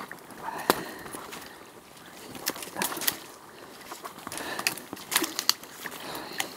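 Footsteps in boots wading through shallow water and wet leaves, sloshing and splashing, with scattered sharp clicks and snaps, clustered about three and five seconds in.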